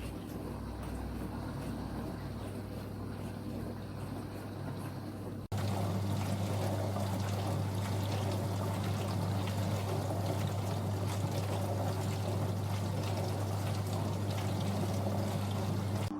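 Cookology CMDW2 countertop dishwasher running a wash, with water sloshing and spraying inside over the steady hum of its pump. About five and a half seconds in the sound breaks off for an instant and comes back louder.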